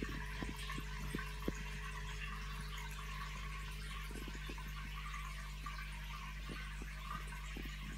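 Water trickling and bubbling in a running home aquarium over a steady low hum. Small scattered ticks come mostly in the first second and a half and again around four seconds in.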